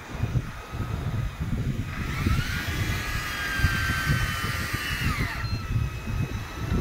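Big-game fishing reel's drag screaming as a hooked fish pulls line off the spool. The whine starts about two seconds in, rises in pitch, holds, then falls away and stops after about three and a half seconds. A low, gusty rumble of wind on the microphone runs underneath.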